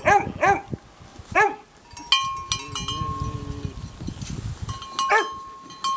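Dog barking: several short barks in the first second and a half, and one more about five seconds in. From about two seconds in, a metal bell clanks and rings repeatedly.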